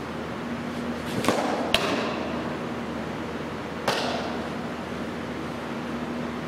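Fastpitch softball pitch: a sharp sound from the windmill delivery about a second in, then the ball smacking into the catcher's mitt half a second later. A little before four seconds, another smack as the returned ball is caught in a glove.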